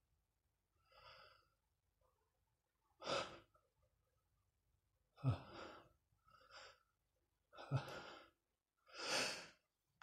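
A man's faint breathy gasps and sighs, five or six of them a second or two apart: the hitching breaths of a sneeze building up.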